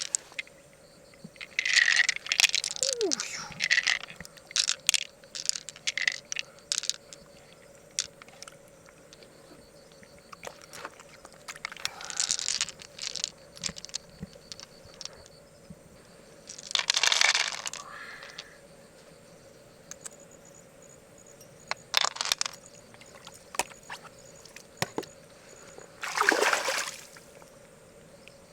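Water splashing and pouring in short surges, several times, with scattered sharp clicks and scrapes of hard objects being handled in between.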